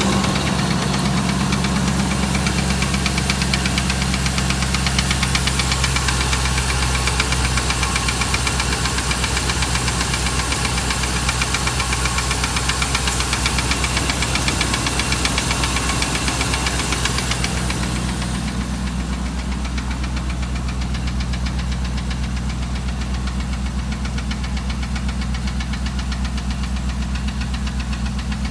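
A 2008 Dodge Ram 1500's 5.7 L Hemi V8 running steadily with a fast, even knock. Five mechanics could not say what it is and have told the owner the engine needs replacing. About eighteen seconds in the sound turns duller and a little quieter.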